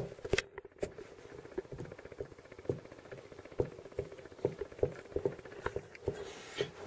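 Soft, irregular taps and knocks, about two a second, as a thumb presses and crimps the pastry edge of a pie down onto its plate on a worktop.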